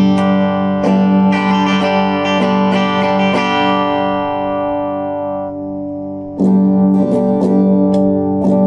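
Cort CR50 electric guitar played through a Cort MX15R practice amp: picked notes over a held chord. A chord is left to ring and fade for about three seconds, then the picking starts again.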